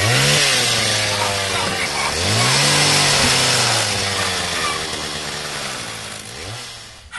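Two-stroke chainsaw revving. It revs up at the start, again more strongly about two seconds in, and once more near the end, easing back in between, over a steady rasping hiss.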